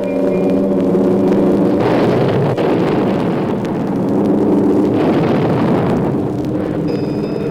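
Vintage air-raid sound effect from a 78 rpm record: steady droning tones under a heavy rushing rumble that swells sharply about two seconds in and again about five seconds in, like bomb blasts.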